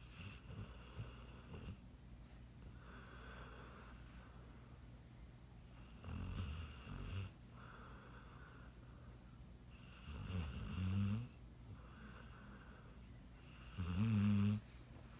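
A sleeping dog snoring: three low snores about four seconds apart, each louder than the last, with softer breaths between them.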